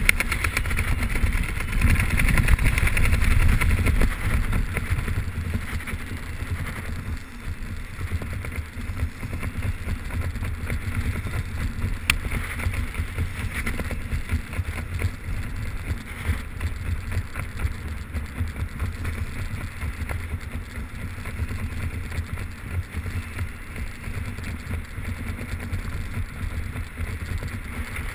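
Wind rushing over the camera's microphone during a skydive, a steady low rumble. It is louder for the first few seconds, then eases off a little.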